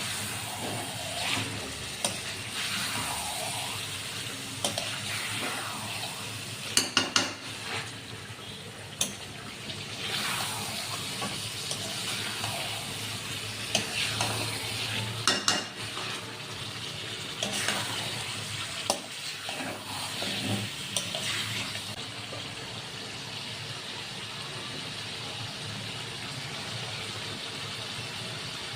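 Chicken frying and sizzling in a pan while it is stirred and scraped with a spatula, with a few sharp clacks of the spatula against the pan.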